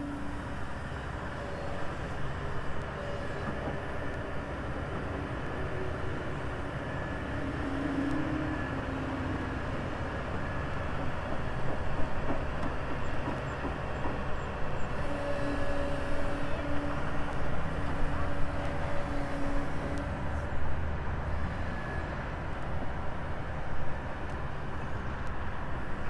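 Kobelco SK200 hydraulic excavator's diesel engine running steadily while it works the arm and bucket, with brief steady tones coming and going over the engine noise.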